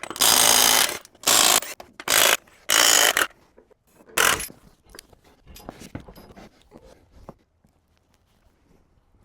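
Socket ratchet clicking in five quick runs as lug nuts are spun off a tractor wheel with a 22 mm socket, followed by a few faint metal clinks.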